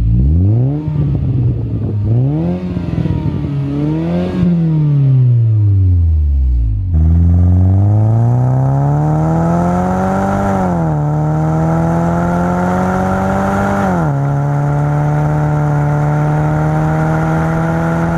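2003 Saab 9-3's turbocharged four-cylinder heard at the tailpipes through a custom 3-inch exhaust with a high-flow cat, a resonator and a muffler. It is blipped three times while parked, then, after a cut, the car accelerates through two upshifts and settles to a steadier pull before easing off near the end. The sound is refined rather than raspy.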